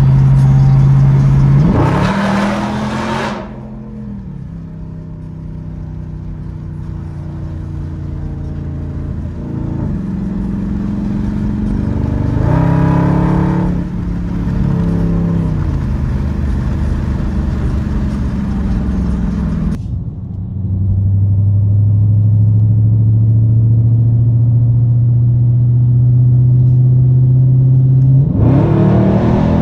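2019 Dodge Charger Scat Pack's 6.4-litre HEMI V8 exhaust with the mid muffler deleted, heard from inside the car with the windows down at highway speed. The engine note holds steady between several climbs under throttle: about two seconds in, around thirteen seconds, and near the end.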